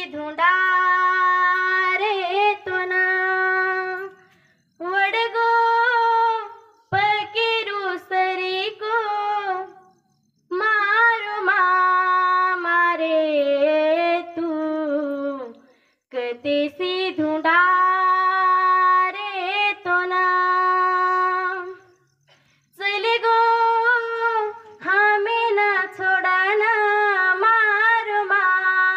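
A young woman singing a Banjara folk song solo with no accompaniment, in phrases of long held notes with a waver in them, separated by brief silences.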